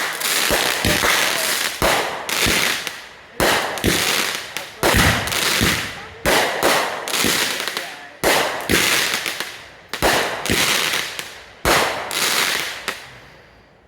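Backyard consumer fireworks going off in quick succession: sharp bangs about one a second, each trailed by a crackling hiss. The last bang comes near the end, then the crackle fades away.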